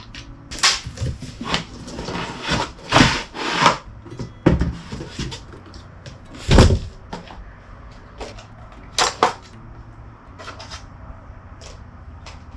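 Unboxing handling: cardboard packaging and chainsaw parts being pulled out and set down, with rustling, scraping and irregular knocks, and a heavy thump about six and a half seconds in.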